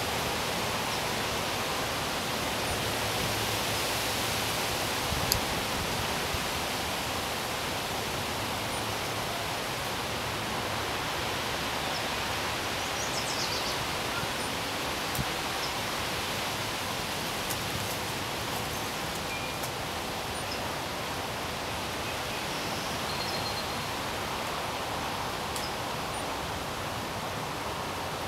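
Wind blowing through a leafy tree, a steady rustling hiss that hardly varies. A sharp tick comes about five seconds in, and a few faint, short high chirps come later.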